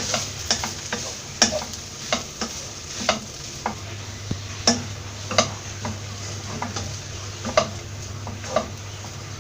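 Spatula stirring cooked beef into sautéed onions and spices in a pan, with sharp scrapes and taps against the pan at irregular intervals over a low sizzle.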